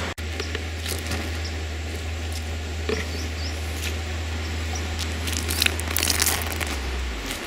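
Crinkling and rustling of a large canvas sheet being handled during painting, with sharper crackles about three seconds in and again around six seconds in. A steady low hum underneath fades out near the end.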